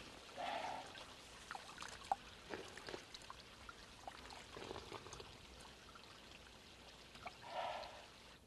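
Faint trickle of a small stream, with brief splashes of water being scooped by hand about half a second in and again near the end.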